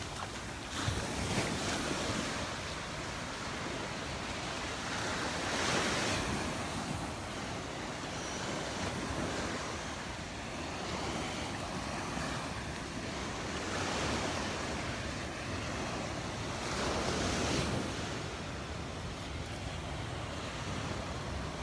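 Gulf of Mexico surf breaking on the beach, waves swelling and washing in every few seconds over a steady rush, with wind on the microphone.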